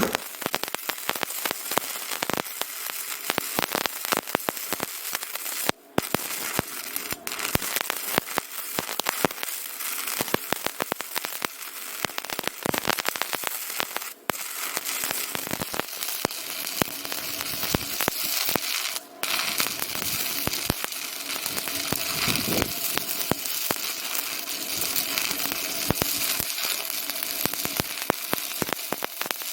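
Dense crackling and sizzling with many sharp pops over a steady hiss, as hot flux and solder spit under the heat of the joint. It drops out abruptly three times.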